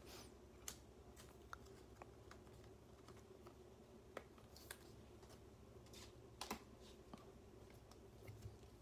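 Sparse, faint clicks and light taps of trading cards being handled and laid down on a tabletop, over a faint steady hum.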